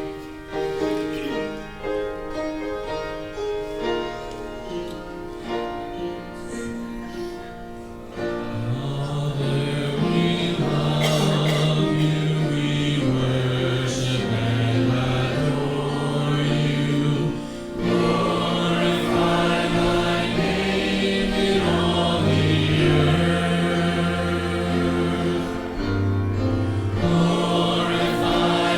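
Church music: voices singing a hymn with instrumental accompaniment. The music is quieter for the first several seconds and grows louder and fuller about eight seconds in.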